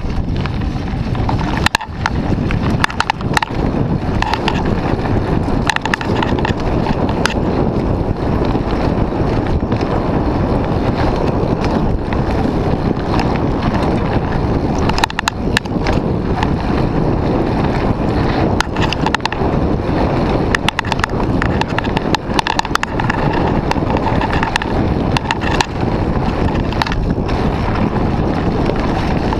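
Wind rushing over the camera microphone and a mountain bike rattling over a rough dirt trail at speed, with frequent sharp clicks and knocks as it hits bumps.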